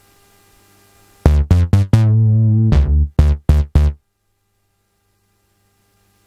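Yamaha DJX keyboard's analog bass synth voice playing a quick phrase of short, punchy bass notes, with one held, wavering note in the middle. The notes start about a second in and stop abruptly about four seconds in, leaving only a faint low hum.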